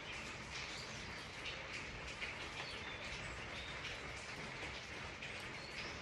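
Steady rain falling, with individual raindrops ticking close by. A few faint, short bird chirps come through it.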